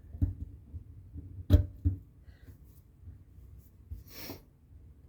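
Small brass screws being fitted by hand into a Solex 35 FPAI carburetor: soft clicks and knocks of small metal parts, with a sharper tap about one and a half seconds in and a short hiss near four seconds.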